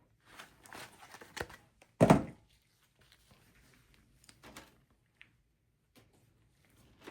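Hands handling a Samsung 500 GB SSD and computer parts: light clicks and rustles, with one louder knock about two seconds in.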